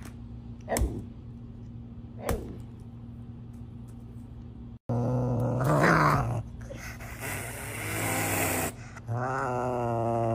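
Serval growling and hissing over an onion held in its mouth. After a quiet start comes a short sharp call about six seconds in, then a hiss, then a long steady growl near the end.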